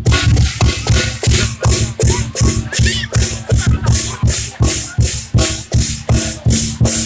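Loud dance music with a fast, steady electronic beat: deep bass hits, bright percussion strokes and held synth tones.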